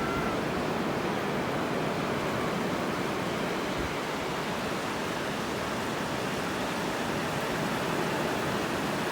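Sea surf washing onto a sandy beach: a steady, even hiss of waves with no distinct breaks.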